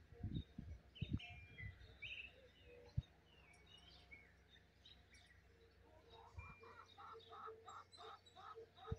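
Faint birds chirping, with short high calls scattered throughout. A run of evenly spaced lower calls comes in the last couple of seconds, and a few low thumps come in the first two seconds.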